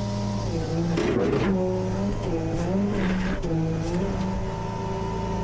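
Tow truck engine running, its pitch dipping and recovering several times as it is worked, with two short hisses about one and three seconds in.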